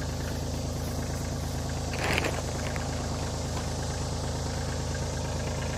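Compact tractor engine idling steadily, with a brief scuffing noise about two seconds in.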